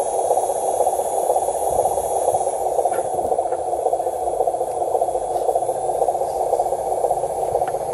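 Radio-controlled model dump truck running: a steady, gritty mechanical noise.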